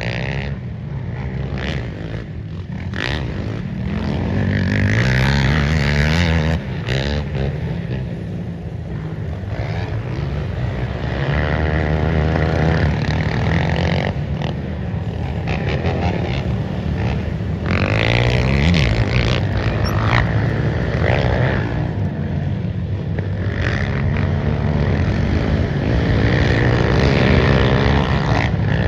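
Off-road race engines revving hard, rising and falling in pitch as they go through the gears, with more than one engine heard at once.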